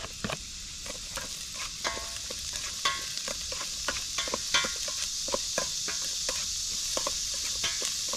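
Garlic, onion and ginger sautéing in hot oil in a pan, a steady sizzle, with a spatula stirring and clicking irregularly against the pan.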